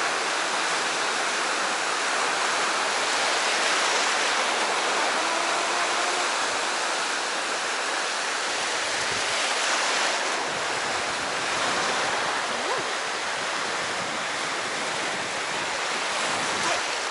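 Sea surf washing steadily on the shore, an even rush of noise with gentle swells in loudness.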